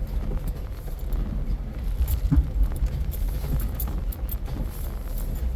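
Jeep driving slowly over a rough off-road trail: a low rumble from the vehicle, with loose parts and gear rattling and clicking over the bumps, and one louder knock about two and a half seconds in.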